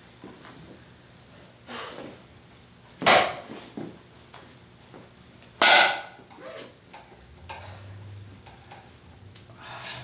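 Pieces of a plastic re-breakable martial-arts practice board being handled and fitted together: small clacks, and two loud sharp snaps about three and five and a half seconds in.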